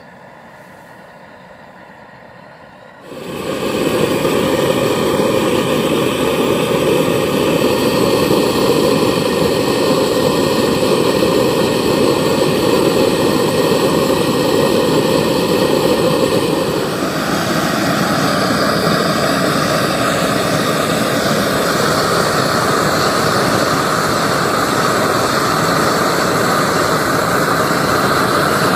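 LPG gas burner with a 45 mm nozzle running steadily as it fires a brick forge. It gets much louder about three seconds in, and its sound shifts higher a little past halfway.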